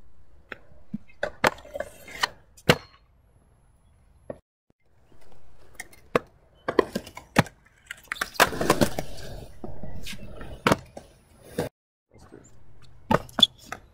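Stunt kick scooter rolling on concrete, with sharp clacks and knocks at irregular times as its wheels and deck hit the surface.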